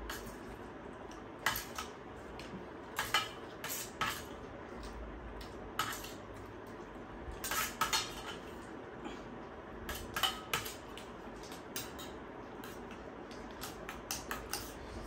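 Metal spoon clinking and scraping against a stainless-steel plate and its bowls, in irregular clinks of a few at a time.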